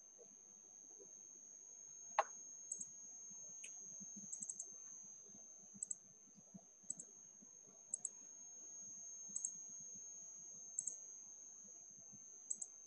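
Quiet clicking at a computer: one sharp click about two seconds in, then short clicks, mostly in quick pairs, every second or so. A faint steady high-pitched whine runs underneath.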